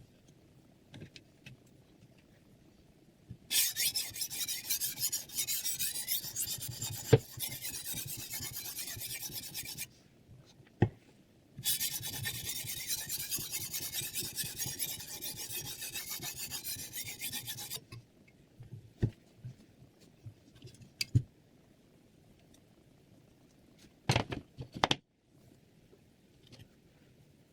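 Knife blade being sharpened on a whetstone: two spells of continuous scraping, each about six seconds long, with a few sharp clicks and knocks between them and near the end.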